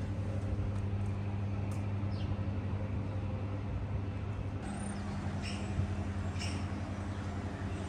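Street ambience: a vehicle engine running nearby with a steady low hum, and a few short bird chirps in the second half.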